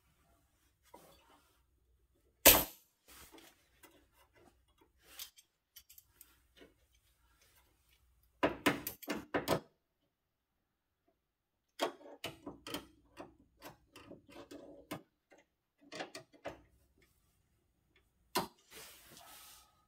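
Scattered metal clanks, taps and rattles of hand tools and a sheet-steel repair piece being fitted and clamped at a pickup truck's cab corner, with one sharp clank about two and a half seconds in the loudest.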